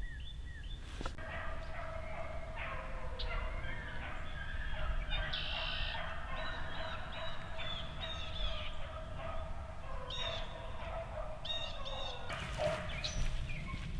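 A chorus of many birds calling at once, overlapping pitched calls over wind rumbling on the microphone.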